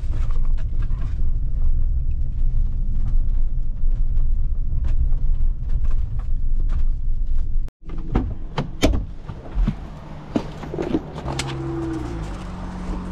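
Steady low rumble of a van driving, heard inside the cab, with scattered small clicks. About two-thirds of the way through it cuts off abruptly and gives way to a quieter stretch of separate knocks and clicks around the van's open front door.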